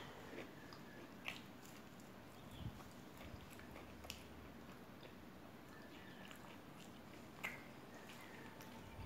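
Faint chewing of crispy fried pakoda, with a few short, sharp crunches spaced well apart.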